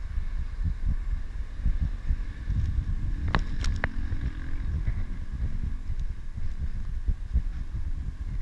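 Chest-mounted GoPro jolted by a runner's footfalls: low thuds a few times a second over a low rumble of wind on the microphone, with a few sharp clicks about three and a half seconds in.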